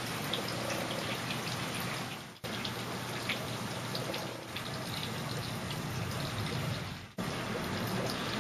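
Steady downpour of rain, with scattered sharp ticks of drops or hailstones striking nearby surfaces. The sound fades away twice, about two and a half seconds in and near the end, and each time cuts straight back in.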